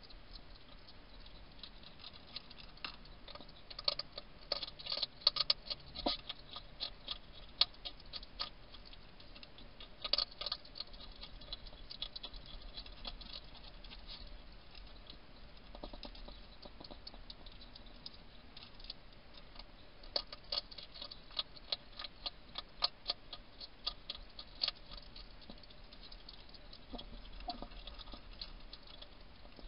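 Wild hedgehog crunching dry food pellets from a dish: quick runs of sharp crunching clicks in bursts, with quieter pauses between, busiest a few seconds in and again past the middle.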